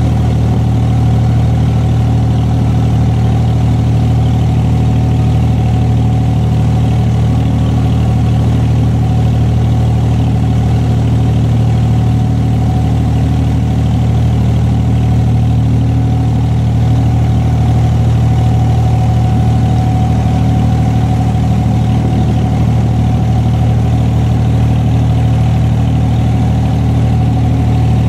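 Boat engine running steadily and loud, heard on board as a deep even hum with a faint thin whine above it while the boat cruises.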